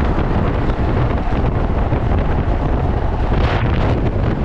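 Heavy wind buffeting on the microphone of a rider moving at speed on an electric motorcycle. It is a steady rush with a brief brighter hiss about three and a half seconds in.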